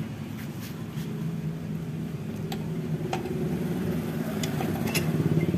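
A steady low mechanical hum, growing a little louder near the end, with a few light metallic clicks as a scooter's cylinder block is handled and slid down over the crankcase studs.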